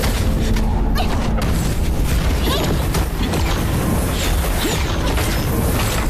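Dense fight sound effects: repeated booms and sharp impacts over a steady low rumble, layered with the score.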